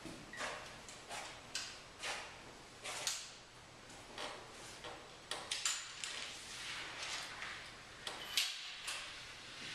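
Irregular small clicks, taps and scuffs, a few a second, from performers stepping across the floor and handling objects, with the sharpest knock near the end.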